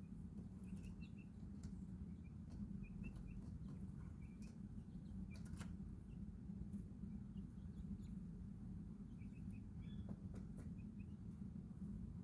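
Baby chicks peeping softly in short, scattered high chirps, with a few faint clicks over a steady low background hum.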